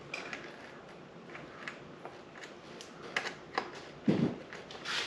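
Light clicks and small knocks of tools and bicycle parts being handled, scattered irregularly over a steady air-conditioner hiss, with one louder low thump about four seconds in.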